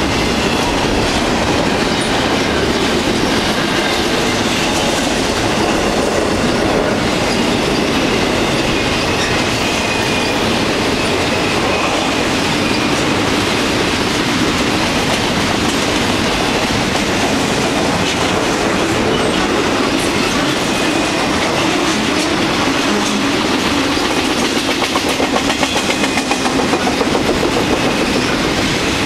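Double-stack intermodal container train rolling steadily past close by: steady rumble and clickety-clack of steel wheels on the rails, with a faint high wheel squeal.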